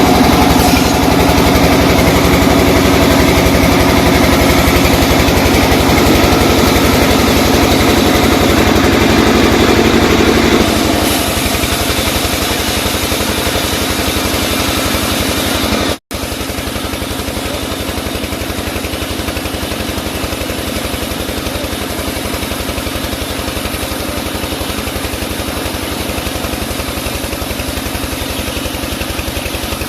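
Sawmill machinery engine running steadily, louder and busier for roughly the first third, then settling to a lower, even running. The sound cuts out for an instant about halfway through.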